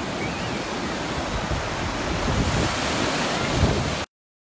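Ocean surf breaking and washing up the sand in a steady rush of foam. The sound cuts off suddenly near the end.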